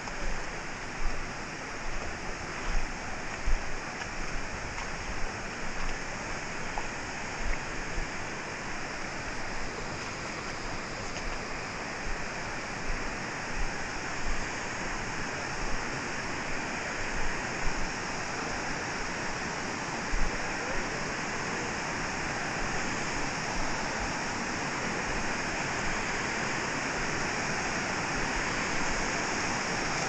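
Shallow creek water rushing steadily over sandstone ledges and riffles, growing a little louder toward the end. Irregular low thumps sound on the microphone during the first part.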